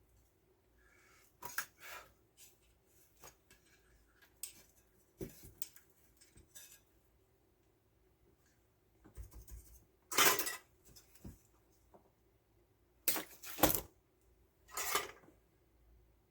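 Tools and small metal hardware being handled while wiring: scattered clicks, clinks and knocks, with louder clattering about ten seconds in and a few more near the end.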